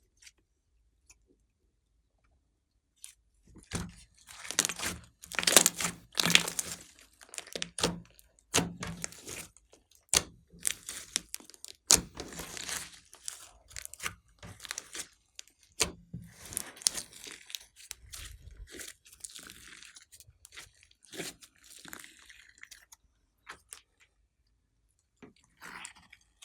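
Glossy slime being squished and stretched by hand, giving irregular crackles and sharp pops. It starts about three seconds in and dies away near the end.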